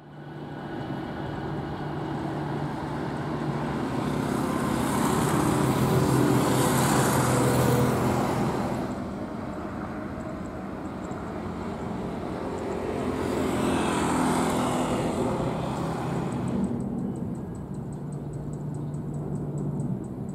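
Jet airliner engines running on the airfield: a steady rumble and hiss that swells twice, about five to eight seconds in and again around fourteen seconds. Near the end the high hiss suddenly drops away.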